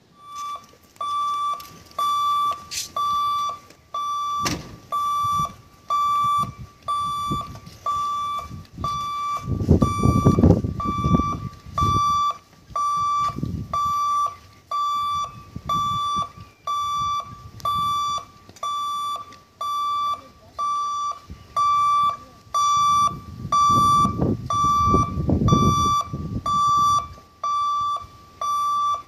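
Level crossing warning beeper sounding a single high electronic tone in evenly spaced beeps, a little more than one a second, signalling that the gate is closed for an approaching train. Low rumbling swells rise under it twice, about a third of the way in and again near the end.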